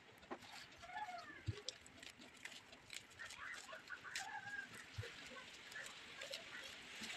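Faint rustling and light ticking of drumstick leaves handled by hand on a steel plate, with a couple of soft knocks. Short bird calls sound in the background a few times.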